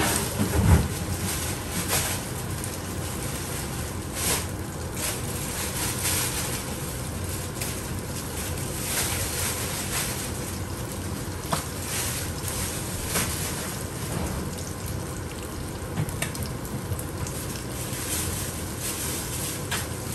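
Sea bass fillets frying in oil in a pan: a steady sizzle with scattered crackling pops.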